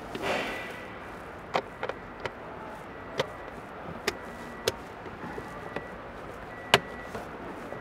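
Sharp plastic clicks and knocks, about seven scattered ones, as the cabin air filter cover is fitted back into its housing behind the glove box of a 2016 Toyota Highlander; the loudest click comes near the end.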